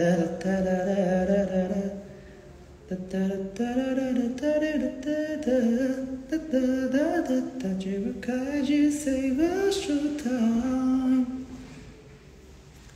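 A young man's voice singing unaccompanied with no clear words: held notes and sliding runs, a short break about two seconds in, then a longer phrase that stops about a second before the end.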